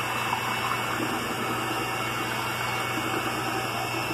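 Electric hand mixer running steadily, its beaters churning soft mashed bananas in a stainless steel pot to work them smooth for a banana mash.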